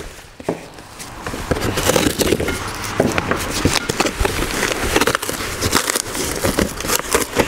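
Cardboard box being torn open by hand: a steady run of short rips and tears as the flaps are pulled apart, starting about a second in.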